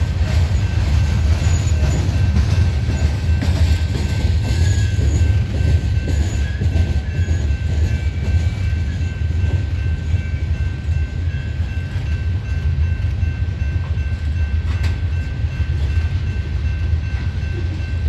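Union Pacific freight train's cars rolling past: a continuous low rumble of wheels on rail, with a thin steady high tone above it.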